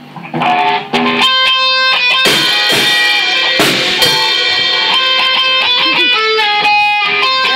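A rock band jamming: electric guitars and a drum kit come in together about a second in and play on loudly.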